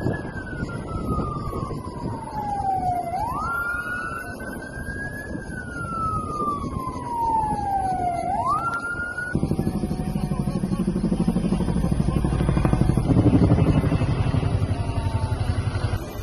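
An emergency vehicle's siren in a slow wail: the tone slides down over about three seconds, jumps back up, and does so twice. About nine seconds in it cuts off abruptly and a loud, fast, low throbbing takes over.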